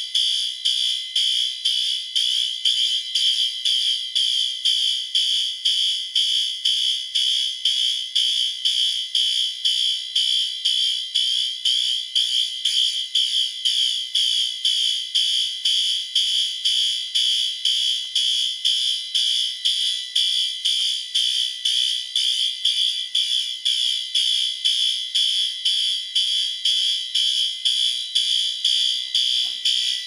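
Two System Sensor L-Series P2WL-SP fire alarm horn strobes sounding a loud, high-pitched horn in march-time code, pulsing evenly about twice a second: the fire alarm panel is in alarm after a manual pull station was activated.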